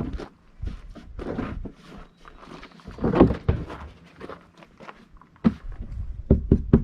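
Scattered thunks and short scrapes of hand work on metal parts, with a quick run of sharp knocks near the end.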